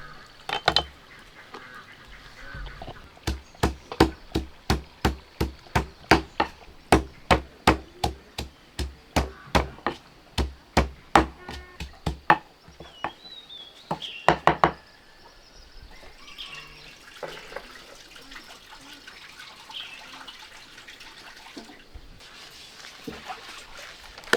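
A run of sharp, evenly spaced knocks, about three a second for some nine seconds, with a few more a little later. Ducks call faintly in the background.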